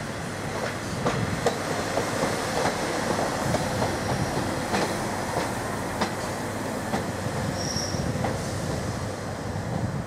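Northern Class 142 Pacer two-axle diesel railbus rolling past into the platform, its wheels clattering in irregular clicks over rail joints and pointwork. A brief high wheel squeal comes about eight seconds in.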